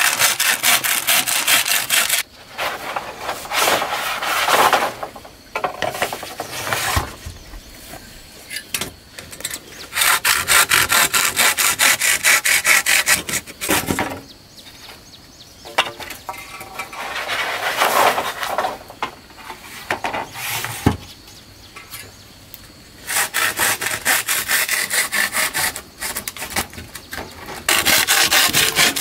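Wood being sawn by hand: several bouts of quick back-and-forth strokes, each a few seconds long, with short pauses between.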